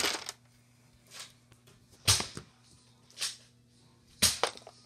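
Nerf blaster firing foam darts one after another: short sharp bursts about a second apart, the loudest about two seconds in and near the end, with fainter ones between.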